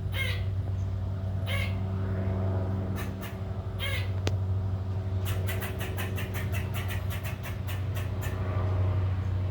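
Squirrel scolding a cat with alarm calls: a few sharp, squeaky barks spaced a second or two apart, then a fast run of clicking chatter, several a second, for about three seconds. A steady low hum runs underneath.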